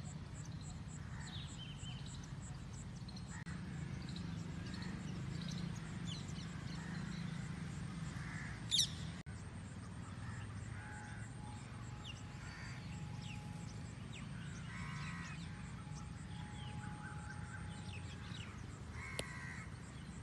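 Crows cawing now and then among other birds' chirps, over a steady low background rumble. A short, sharp rising whistle, the loudest sound, comes about nine seconds in.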